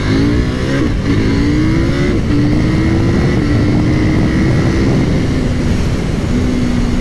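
KTM 890 Duke R's parallel-twin engine at full throttle in a hard acceleration. The revs climb and then drop sharply at each quickshifter upshift, several times in a row, and each climb is slower than the one before as the gears rise.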